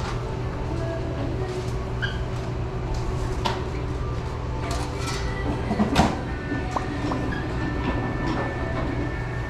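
Steady low hum of restaurant equipment under scattered clicks and clatter from sandwich-counter work, with one sharper knock about six seconds in.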